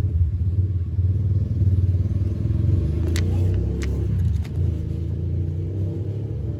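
Steady low rumble of a nearby motor vehicle engine running, with a few light clicks about three to four and a half seconds in.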